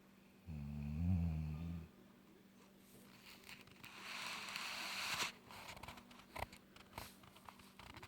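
A sleeper snoring: one low, rattling snore on the in-breath for about a second and a half, then a long breathy hiss on the out-breath from about three to five seconds in, followed by a few faint clicks.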